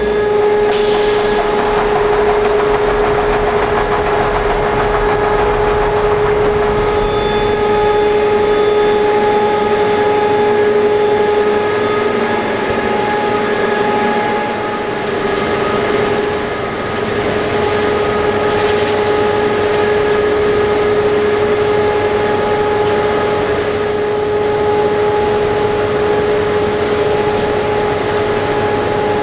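Electric drive of a rail-mounted timber transfer wagon running with a steady, even whine over a wash of machine noise.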